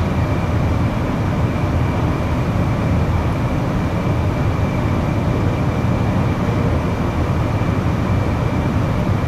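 Steady low background rumble with a faint constant high whine above it, unchanging throughout.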